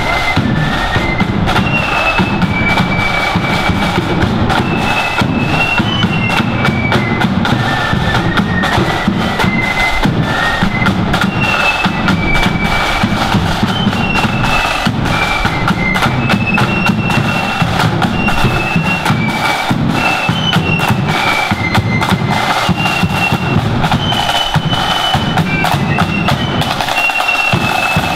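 Marching flute band playing a tune: flutes carry a high melody over rapid snare drumming and a steady bass drum beat.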